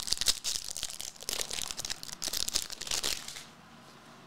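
Crinkling and crackling of a foil trading-card pack wrapper as the cards are pulled out, stopping about three seconds in.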